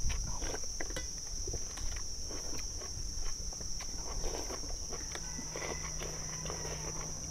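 Two people slurping rice noodles, with scattered light clinks of chopsticks and spoons against stainless steel bowls. A steady high-pitched insect chorus runs behind them.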